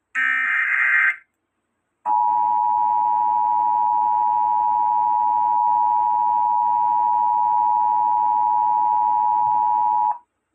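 Emergency Alert System broadcast: a short burst of screeching digital data, the last of the SAME header bursts, then after a second's pause the EAS two-tone attention signal sounding steadily for about eight seconds before cutting off. The alert is for a tornado warning.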